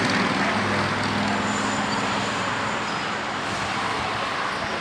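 Road traffic noise, a passing motor vehicle's engine drone fading within the first second or so, over a steady background rush.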